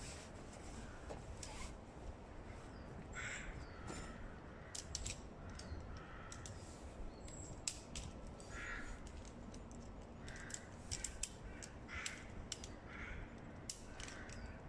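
Crows cawing repeatedly, short separate calls spread throughout, with sharp clicks and taps from tent poles being handled and taken down.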